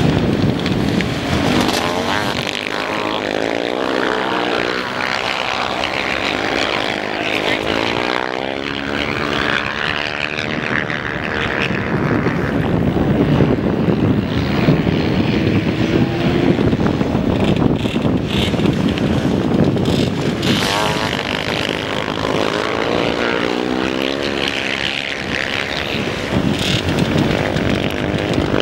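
Single-cylinder 250 and 450 cc dirt bike engines racing, several bikes revving hard and easing off in turn as they pass. Their pitches overlap, rising and falling throughout.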